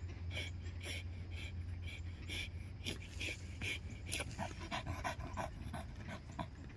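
Pit bull panting hard and fast, about three breaths a second, over a low steady hum. About four seconds in, a slight tone creeps into each breath.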